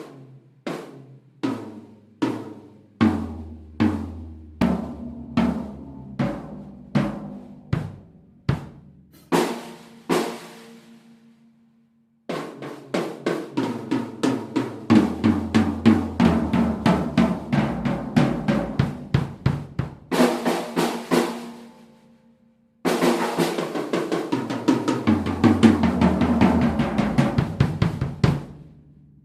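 PDP Concept Maple seven-piece acoustic drum kit with its stock heads, recorded unedited. Single strokes step down in pitch around the drums, followed by two ringing cymbal crashes. Then come stretches of fast fills and rolls around the kit, broken by a short pause, ending shortly before the close.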